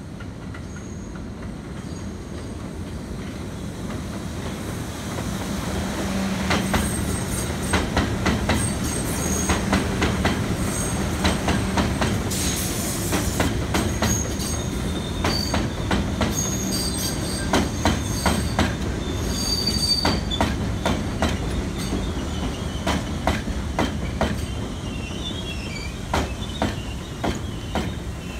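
An R62A subway train approaches on an elevated steel structure, growing louder over the first few seconds, then passes slowly through the station without stopping. Its steel wheels clack sharply over the rail joints and squeal high and shrill at times over a steady rumble.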